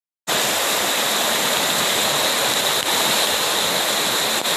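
Floodwater rushing down a street in heavy rain, with drain pipes spouting into the flow: a steady, even rushing noise that starts abruptly just after the beginning.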